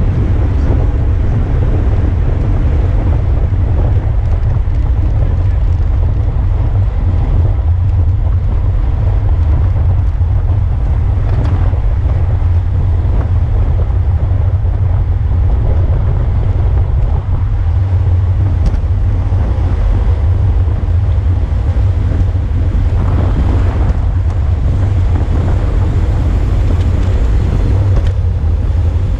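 Wind buffeting the microphone of a camera on a moving racing bicycle: a steady low rumble that never lets up, with the hiss of air and road underneath.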